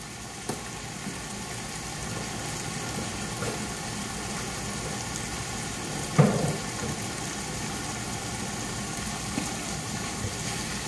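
Andouille sausage and a chicken-stock and tomato-paste sauce simmering in a skillet, a steady low sizzle and bubble, with one brief thump about six seconds in.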